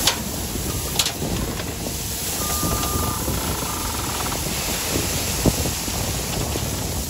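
Crushed granite gravel pouring off a loader bucket into a trailer: a steady rushing hiss of sliding stones over the running loader, with a few sharp knocks of rock striking.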